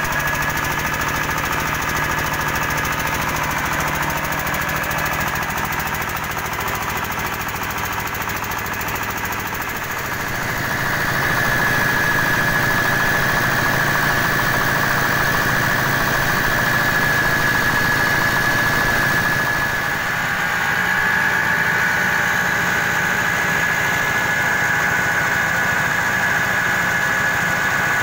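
Horizontal single-cylinder diesel engine running steadily with a knocking clatter, driving a mobile rice huller through V-belts. A steady high whine rides over it, and the whole sound gets louder about ten seconds in.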